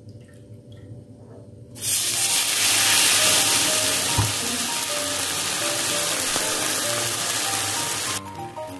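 Dosa batter sizzling in hot oil in a stainless steel frying pan. The loud, steady sizzle starts suddenly about two seconds in as the batter hits the pan, and cuts off abruptly near the end.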